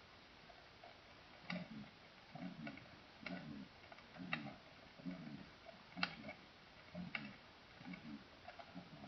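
Recorded human heartbeat: faint low thuds in a steady rhythm about every 0.9 seconds, roughly 65–70 beats a minute, with a few sharp clicks scattered through it.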